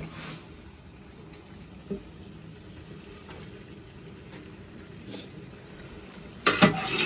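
Diced brinjal and potato cooking in a large aluminium pot over a wood fire, with a soft, steady sizzle, while a wooden paddle stirs them. A small knock about two seconds in, and louder scraping strokes of the paddle against the pot near the end.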